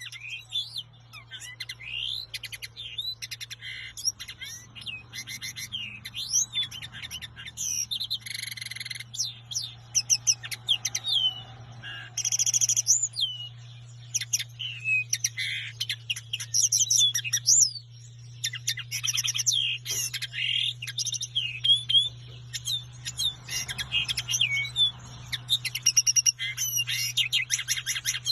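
Common linnet singing: a long, continuous twittering song of quick varied notes, trills and short rising and falling whistles with brief pauses. A steady low hum runs underneath.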